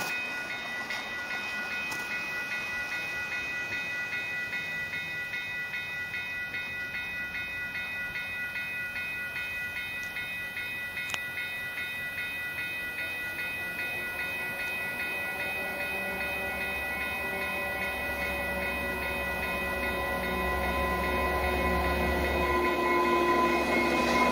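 Level-crossing warning bell ringing steadily as an exo commuter train led by an EMD F59PHI diesel locomotive approaches. The locomotive's engine rumble and a pitched drone grow louder over the second half as the train nears.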